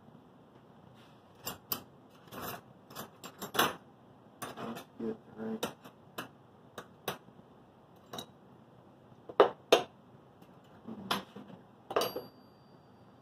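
Irregular light metallic clicks and clinks of small tools and metal parts being handled on a workbench, about a dozen over the stretch, the sharpest near the three-quarter mark. No machine is running.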